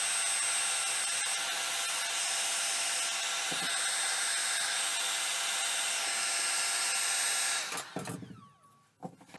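Electric heat gun blowing steadily, a fan hiss with a faint high whine, as it heats a strip of plastic bottle to shrink it tight around wooden blocks. It cuts off near the end.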